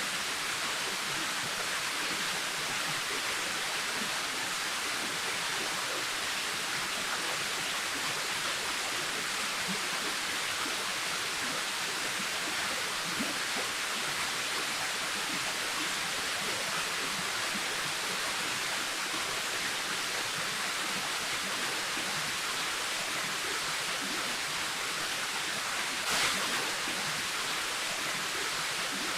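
Waterfall: a steady rush of falling water, with a brief swell about 26 seconds in.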